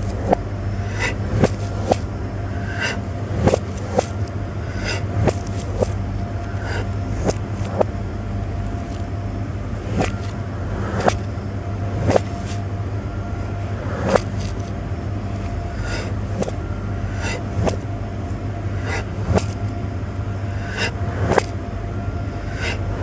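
Ice cracking: sharp, irregular cracks about once a second over a steady low hum.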